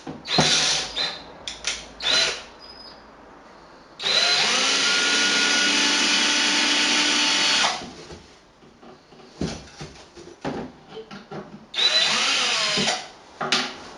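Power drill driving screws out of a wooden subwoofer shipping crate. It runs in a few short bursts, then a steady run of about four seconds in the middle, then another burst near the end, each run starting with a rising whine.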